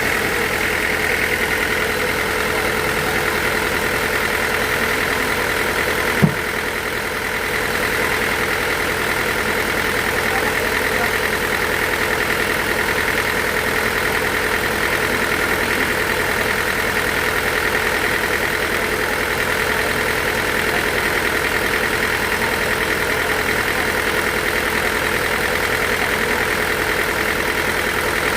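Sawmill machinery running with a steady drone and a constant whine, with a single sharp knock about six seconds in.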